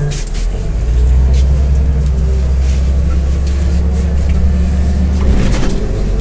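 Interior of a MAZ-105 city bus on the move: the diesel engine's steady low drone, growing louder about a second in and changing note about five seconds in, with a few short rattles.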